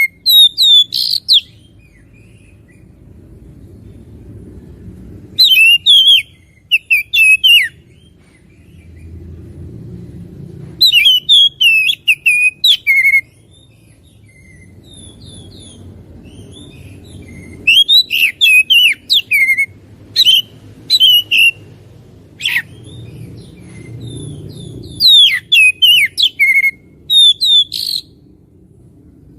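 Oriental magpie-robin singing: loud bouts of rapid whistles and chirps, each a couple of seconds long, separated by pauses of a few seconds.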